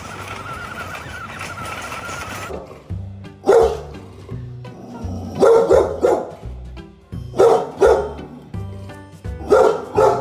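A small motor's steady whine, then an English bulldog barking: one bark, then three pairs of barks about two seconds apart, over background music.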